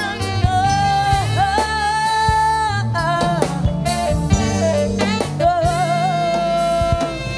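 Live salsa band with a female lead singer holding long notes with vibrato over a full percussion section.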